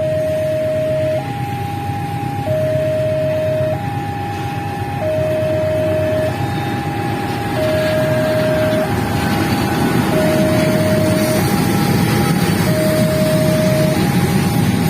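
Railway level-crossing warning alarm sounding an electronic high-low two-tone signal, each tone lasting about a second and a quarter, warning that a train is passing. Under it, the rumble of a container freight train grows louder in the second half.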